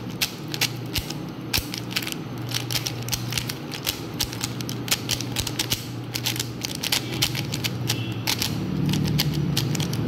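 Stickerless 3x3 speedcube being turned fast during a timed solve: a quick, irregular stream of plastic clicks and clacks as the layers snap round.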